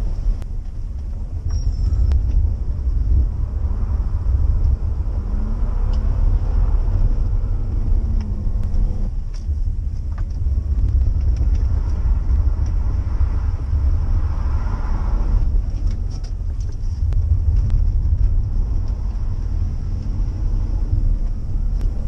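Engine and tyre noise heard inside the cabin of a BMW E46 3 Series on a wet road: a heavy low rumble, with the engine revving up and down a few times through manual gear changes.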